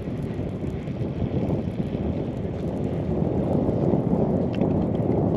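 Wind buffeting the microphone: a restless low rumble that gets louder about halfway through.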